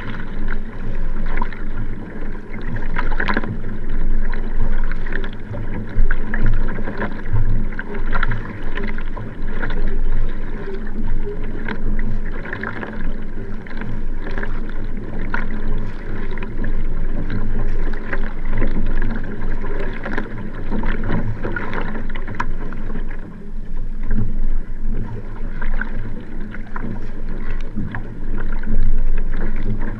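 Nelo Vanquish 3 sprint racing kayak paddled hard: water rushing along the hull, with the splash and pull of each paddle stroke giving repeated surges.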